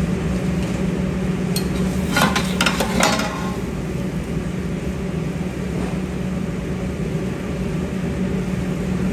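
Ground spices sizzling in hot ghee in a large steel pot, with a few scrapes and knocks of a metal spatula against the pot about two to three seconds in. A steady low hum runs underneath.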